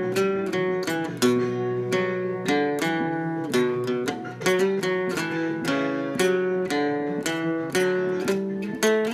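Acoustic guitar music: a steady run of plucked notes, several a second.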